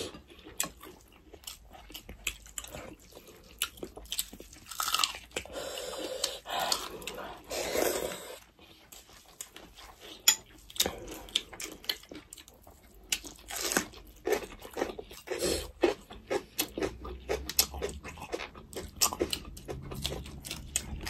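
Close-up chewing and crunching of food by two people eating with their hands, with irregular crisp bites and crackles. Near the end come bites into raw pepper and chilli.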